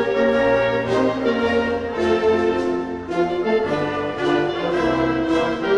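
Background music: an orchestral piece led by brass, moving through a series of held notes.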